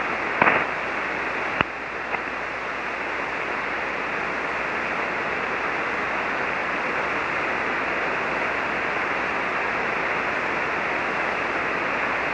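Steady hiss and static from a single-sideband ham radio receiver with no station coming through: the other station has dropped off the air. Two short clicks come in the first two seconds.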